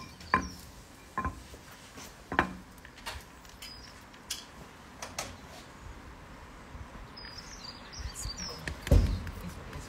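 Sharp knocks on a wooden board from hands-on food prep, about one a second at first and then sparser, with a single heavier, deeper thump near the end.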